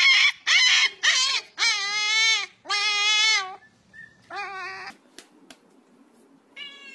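Husky puppy yipping several times in quick succession, then giving two long drawn-out howls and a shorter one. Near the end a cat starts a long meow.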